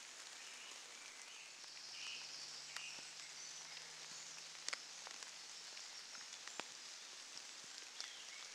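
Light rain in woodland: a faint, even patter with scattered single drops ticking.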